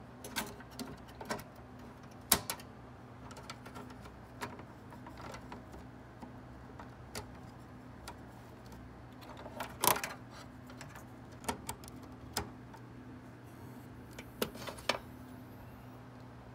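Clicks and knocks of a hard drive's plastic caddy and a steel desktop case being handled as the drive is fitted into its bay, irregular, the loudest about two seconds in and near ten seconds, over a faint steady hum.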